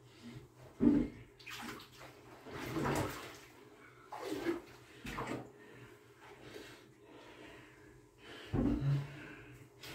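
Bathwater sloshing and splashing in a foam-filled bathtub as a person shifts and settles into it. It comes in a handful of irregular surges, the loudest about a second in.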